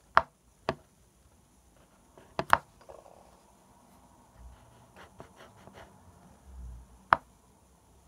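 Fine-tipped pen drawing on paper: a handful of sharp taps as the pen tip comes down, the loudest a double tap about two and a half seconds in and a single one near the end, with a run of small scratchy ticks between.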